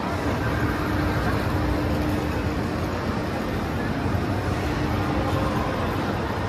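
Steady din of an indoor amusement park: a low machinery hum under a dense wash of noise, with people's voices in it.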